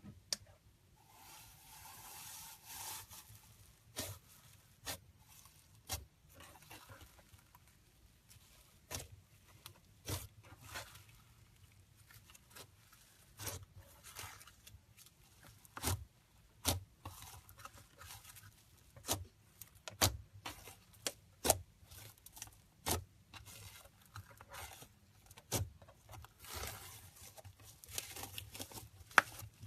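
Slime being worked by hand: irregular sharp sticky pops and clicks, with stretches of soft rubbing squish.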